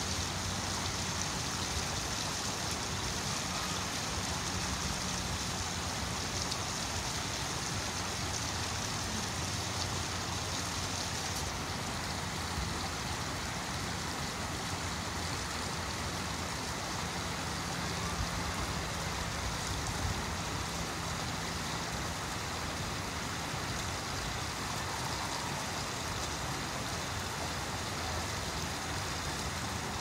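Steady rushing of running water, as from a pond's water feature, over a faint low hum. The high hiss thins out about a third of the way in.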